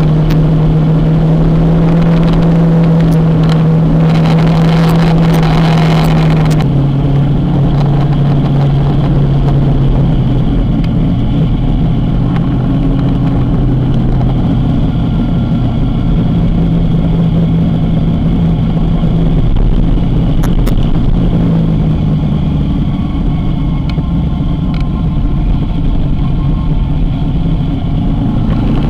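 Motorcycle engine running while riding, a steady note that drops to a lower pitch about six seconds in and then drifts slightly up and down.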